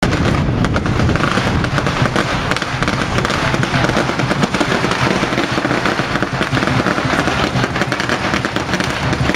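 A string of firecrackers going off, a dense, unbroken rapid crackle of small bangs.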